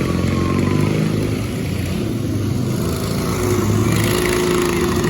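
Racing lawn mower's small engine running close by, its pitch shifting a little up and down.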